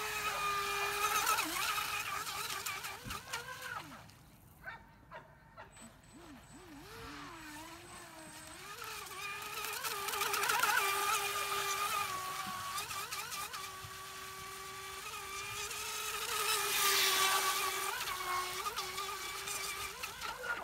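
Proboat Recoil 17 RC boat's brushless motor whining at speed, the pitch wavering and bending as the boat runs and turns, with the hiss of the hull through the water. The whine fades away about four seconds in, then comes back and grows louder twice.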